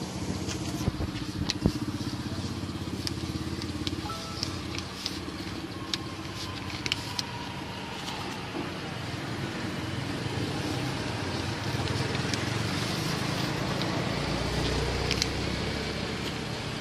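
Steady road-traffic noise, growing louder as a vehicle passes near the end, with short crackles of brown paper and banana leaf being handled in the first half.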